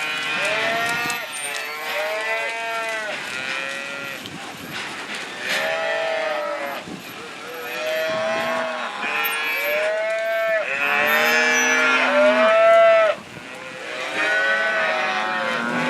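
A herd of cattle mooing and bawling, many overlapping calls, some deep and some higher-pitched, one after another with hardly a pause.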